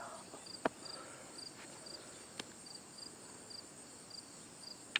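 Crickets chirping in short repeated chirps about twice a second over a steady high insect hum. A few sharp clicks stand out as the loudest sounds, one less than a second in and another about halfway.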